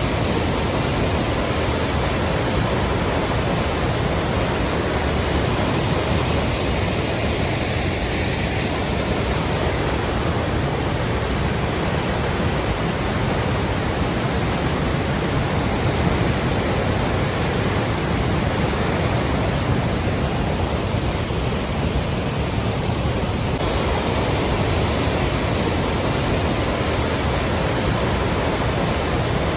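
Flowing water rushing steadily, a constant even noise with a strong low end.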